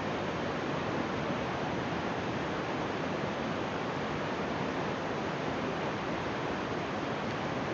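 Hirayu Great Falls, a 64 m straight-drop waterfall running high with rainy-season water, pouring: a loud, steady, even rush of falling water.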